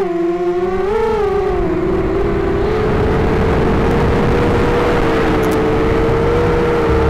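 Racing quadcopter's four T-Motor F40 2300KV brushless motors spinning 5x4.5 propellers at flight throttle: a steady whine made of several close pitches, over rushing wind and prop noise on the onboard camera's microphone. The pitch lifts and dips about a second in, then holds.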